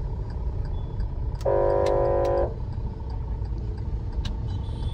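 A vehicle horn gives one steady blast lasting about a second, over a low rumble of street traffic and engine.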